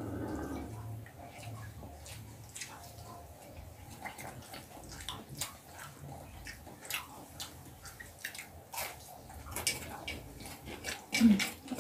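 Hand-eating sounds: scattered short wet clicks and smacks of chewing and of fingers working rice on plates, over a low background hum. A brief, louder, low-pitched sound comes near the end.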